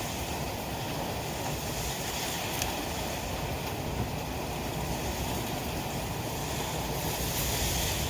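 Typhoon wind and rain: a steady rush of storm noise with wind buffeting the microphone, and a few faint ticks.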